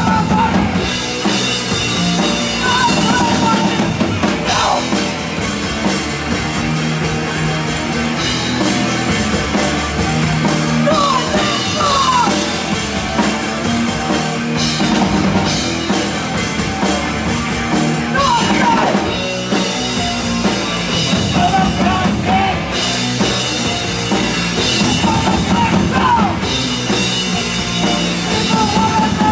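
Punk band playing live: distorted electric guitar, bass and drum kit, with a woman's yelled vocals coming in at several points.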